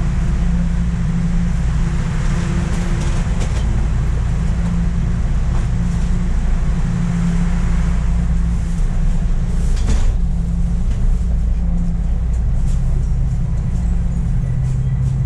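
Subway train running, heard from inside the car: a steady rumble of wheels on rails with a motor hum, and one sharp click about ten seconds in.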